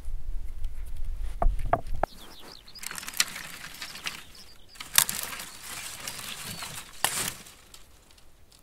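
Dry brushwood twigs rustling and crackling as they are handled and broken, with a few sharp snaps. Before that, for about the first two seconds, low wind rumble with a few light knife taps.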